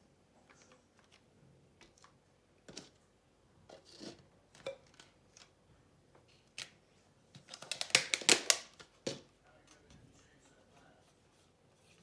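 Art supplies handled on a work table: scattered light knocks and clicks as cups and jars are moved, then a quick run of clattering clicks about eight seconds in.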